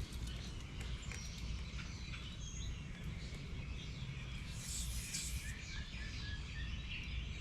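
Outdoor ambience: birds chirping, over a steady low rumble, with a brief hiss about five seconds in.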